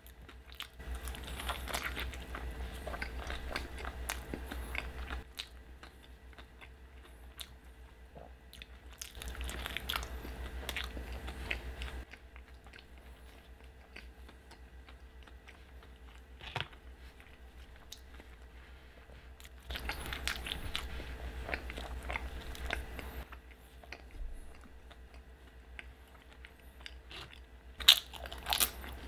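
Close-up mouth sounds of a burrito being bitten and chewed, in three spells of wet chewing with quieter pauses between them. Near the end come a few sharp lip smacks as fingers are licked.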